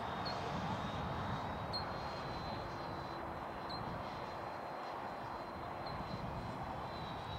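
HSD Super Viper 105 mm electric ducted-fan RC jet flying at a distance: a steady airy rush with a thin, steady high tone over it.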